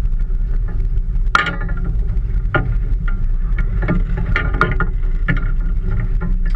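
Small fishing boat at sea: a low, steady rumble of wind and water against the hull, with a few sharp knocks and clatters from gear being handled in the cockpit.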